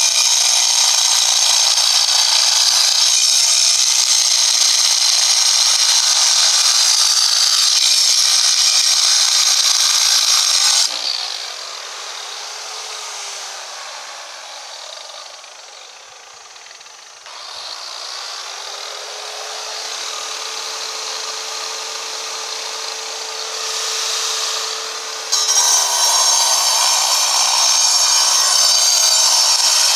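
Electric angle grinder cutting into a block of stone: a loud, harsh grinding while the disc is under load. About eleven seconds in, the blade comes off the stone and the sound falls away to a quieter whine, with a pitch that sags and then holds steady. Near the end the disc bites into the stone again and the loud grinding returns.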